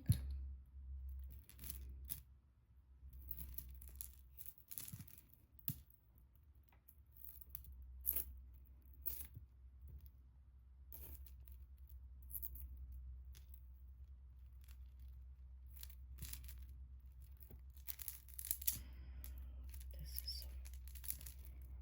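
Handling of jewelry and its packaging: scattered light clicks and rustles, with tearing of wrapping as pieces are opened and unpacked.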